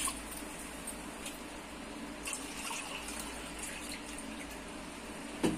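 Faint drips and small ticks of water settling in a steel pot just filled with water. A short louder sound comes near the end.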